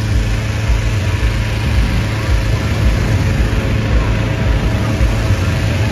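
Steady hum of a gas-engine inflator fan running, blowing cold air into a hot air balloon envelope during inflation.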